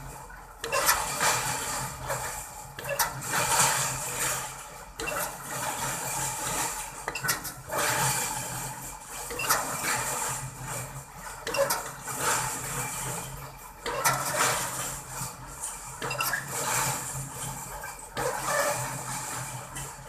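Crawler pile-driving rig's hammer striking a concrete pile, a heavy blow every second or two, over the steady running of the rig's engine.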